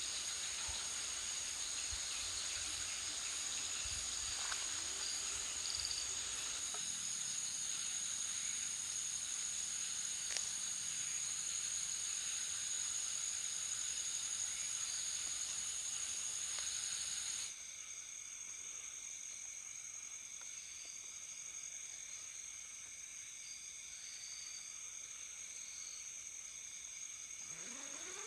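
Night insects calling in steady, unbroken high trills over a hiss. About two-thirds of the way through, the sound drops abruptly and gets quieter, leaving a different set of lower insect tones.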